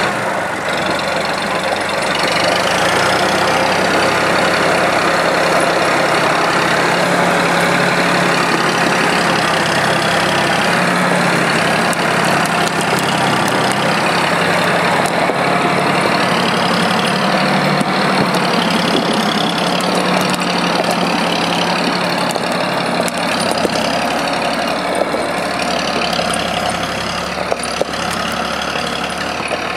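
Ödbjörn forestry forwarder's diesel engine running steadily as the machine drives loaded with logs, with a high whine that rises and falls in pitch every few seconds.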